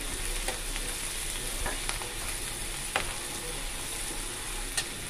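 Chopped onions sizzling as they fry in oil in a non-stick kadai, stirred with a steel spatula that scrapes and clicks against the pan now and then.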